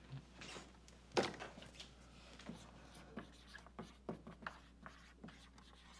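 Dry-erase marker writing on a whiteboard: a quick run of short squeaking and scratching strokes as a word is written letter by letter. There is a single sharper knock about a second in, the loudest sound.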